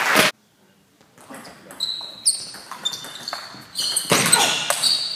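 Applause and crowd voices that cut off suddenly a fraction of a second in. Then a table tennis rally: the celluloid ball clicks off bats and table, and shoes squeak on the sports-hall floor, growing louder and busier from about four seconds in.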